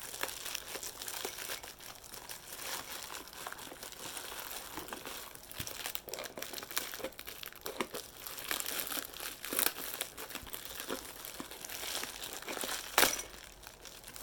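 Packing wrap being crinkled and pulled off a tightly wrapped parcel item by hand, a steady run of crackles and small snaps with one sharper, louder snap near the end.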